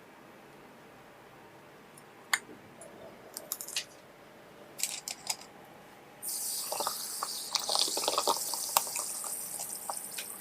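Kitchen food-preparation sounds: a few light clicks and taps, then from about six seconds in a steady hissing, crackling noise that lasts about four seconds.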